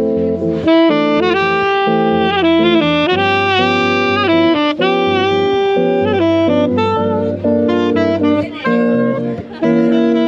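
Jazz music: a saxophone plays a melody with vibrato over steady bass notes.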